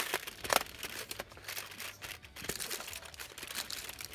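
Cardboard door of a chocolate advent calendar being pried and torn open with the fingers: scratchy crinkling of card, with two sharper clicks in the first second.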